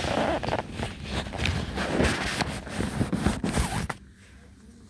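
Rustling and scraping handling noise with irregular clicks, like a phone's microphone rubbing against clothing, stopping abruptly about four seconds in.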